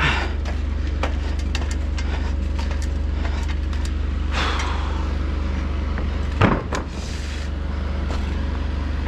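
Light clicks and knocks from climbing an aluminium ladder, with one louder knock about six and a half seconds in, over a steady low rumble.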